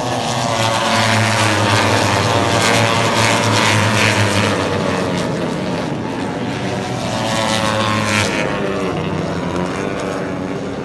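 World Superbike racing motorcycles passing at speed, their engines at high revs. The sound swells twice, about two to four seconds in and again around seven to eight seconds, then eases off near the end.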